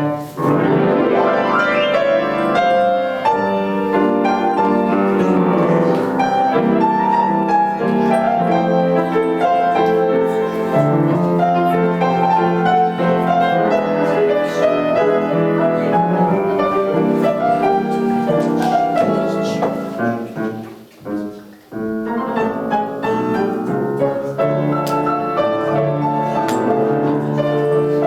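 Piano duet playing a tango in a classical style, with a short break in the playing about two-thirds of the way through before it picks up again.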